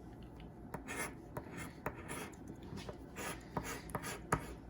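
Scratch-off lottery ticket being scratched: a run of short, dry rasping strokes across the card, with a few sharp clicks.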